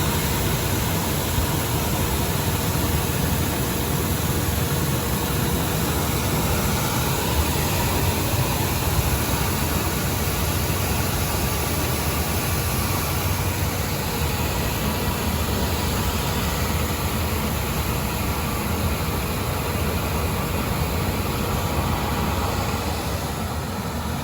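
6FT-PD1C corn grits milling machine running steadily, a dense, even mechanical noise with a faint steady hum.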